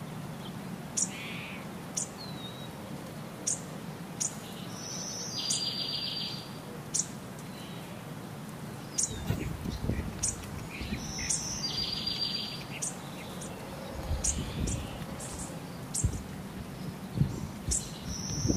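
Songbirds chirping: short high chirps about once a second, and a buzzy trilled phrase that comes back every six or seven seconds. Low bumps and rumbles join in from about halfway through.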